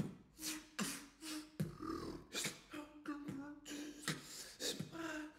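Beatboxing: sharp percussive mouth hits in a rhythm, with a hummed, held tone sounding between them.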